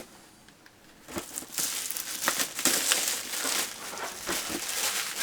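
Plastic packaging crinkling and crackling as it is handled, starting about a second in and going on without a break.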